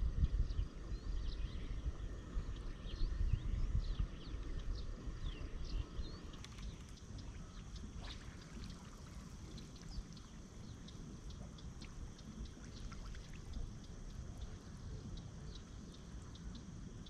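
Water trickling and sloshing, with a low rumble in the first few seconds that then fades. Many short high chirps sound throughout over a faint steady high hum.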